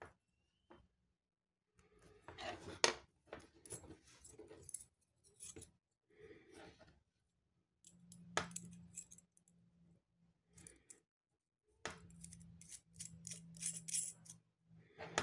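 Metal stethoscope chestpiece being handled and fitted together by hand: faint clicks, taps and scraping of metal on metal, in several short bursts with quiet pauses between.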